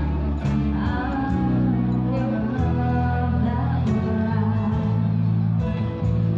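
A woman sings a slow love ballad with a live band: sustained electric bass notes under her voice, with light cymbal ticks.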